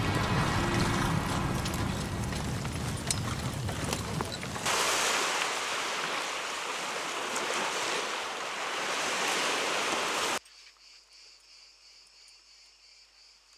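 Horses galloping, with hoofbeats over low background music, then a cut a little past four seconds to sea surf washing on a beach. The surf stops abruptly near ten seconds, leaving faint crickets chirping.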